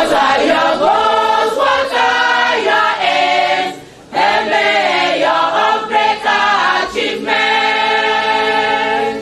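A choir of voices singing a hymn-like song unaccompanied, with a brief break about four seconds in. It ends on a long held chord that cuts off.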